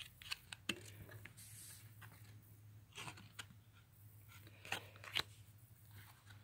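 Faint clicks and rustles of cardboard baseball cards being handled and flipped, in a few short scattered taps with small clusters about three seconds and about five seconds in.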